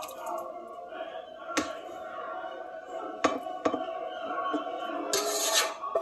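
A cooking pot tipped over a plastic mixing bowl while thick rice pudding is poured and scraped out of it: three sharp knocks of the pot or spoon, then a short burst of scraping and sloshing near the end.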